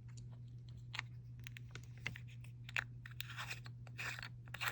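Small plastic jars of nail powder being handled: scattered light clicks and taps with a couple of brief scraping rustles, over a low steady hum.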